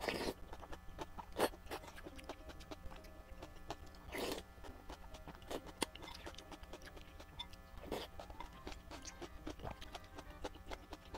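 Close-miked eating: a slurp of noodles at the start and another about four seconds in, between them wet chewing and lip smacks heard as many small clicks, over faint background music.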